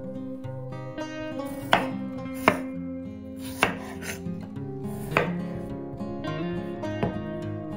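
Chef's knife cutting through peeled raw potatoes and knocking on a wooden cutting board: about five sharp, unevenly spaced chops. Light acoustic guitar background music plays underneath.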